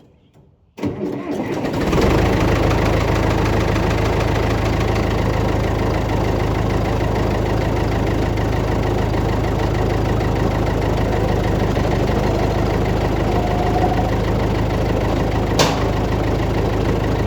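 A backhoe's diesel engine, jump-started from a jump box on a weak battery, cranks and fires about a second in, then settles into a steady run. There is a single sharp click near the end.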